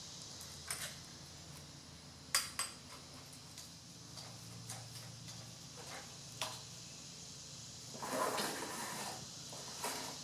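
Scattered metallic clicks and clinks of a wrench and the pole saw's metal parts being handled as the bar nuts are tightened and the extension pole is fitted, with a longer rattle about eight seconds in.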